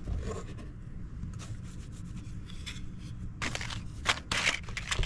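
Cardboard matchboxes and paper matchbooks being handled and rummaged through in a metal tin: a series of short rustles, scrapes and light clatters, busier in the second half.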